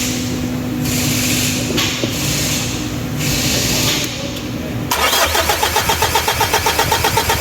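Starter cranking a 4D56 direct-injection diesel engine, beginning about five seconds in as a fast, even pulsing of compression strokes, about seven a second. The engine does not catch: it cranks without starting, here with the supply-pump outlet pipe removed to check fuel delivery.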